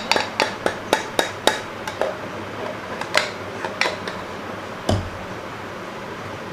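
A metal spoon clinking repeatedly against a dish while beating a coffee mixture by hand: a quick run of sharp clinks that thins out, then one dull knock about five seconds in.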